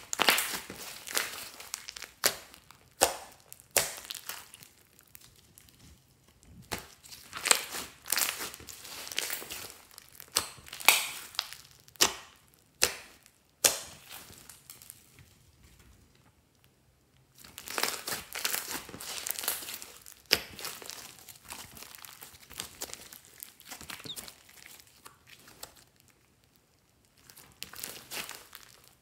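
Hands squeezing, pressing and stretching thick orange slime studded with small beads, giving irregular wet pops and clicks in bursts. The sound goes quiet for a few seconds about halfway through and again near the end.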